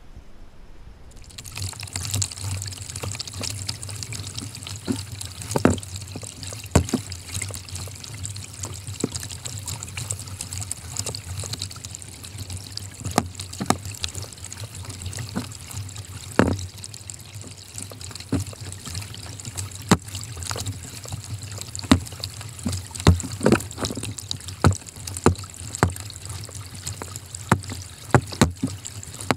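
Kayak paddling: a double-bladed paddle dipping into lake water, with irregular splashes and drips off the blades over a steady hiss. The hiss comes in about a second and a half in.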